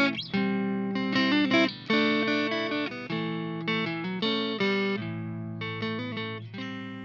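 Intro music: a plucked guitar tune, notes changing in quick succession over a steady bass note.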